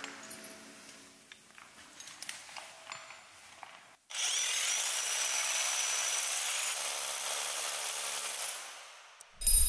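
A power drill boring into the cave rock, most likely to set a bolt for the rope. It starts suddenly about four seconds in, runs steadily with a faint high whine, and fades out near the end. Before it come only a few faint clicks of climbing gear.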